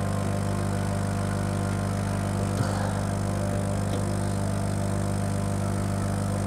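Steady electric hum of a K40 laser cutter's running machinery with its air-assist pump, with a light tick a little past halfway and another soon after.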